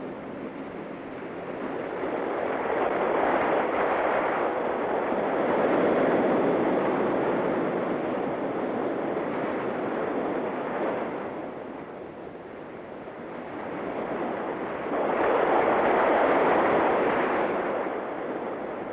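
Ocean surf: waves breaking and washing up a beach, the noise swelling and falling away, with two big surges about ten seconds apart.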